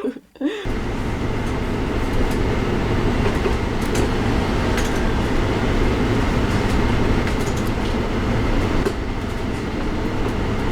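Steady, loud rumbling noise of a vehicle in motion, starting abruptly about half a second in, with faint clicks over it.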